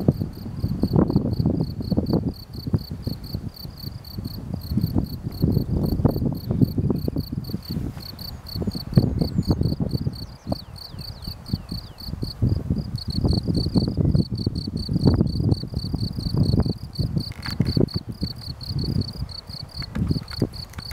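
Wind buffeting the microphone in uneven gusts, over the steady, rapid, high-pitched chirping of insects.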